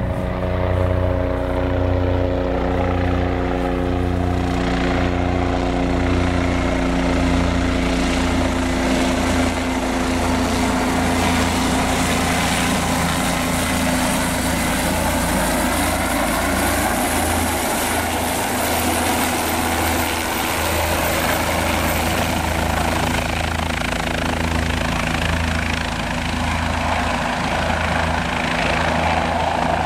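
Bell 407 helicopter coming in to land: a pulsing low beat from its four-blade main rotor, with steady humming tones over it for the first several seconds. From about four seconds in, a broad rushing noise from the rotor and turbine fills in as the helicopter comes close, and it holds steady as it settles into a low hover.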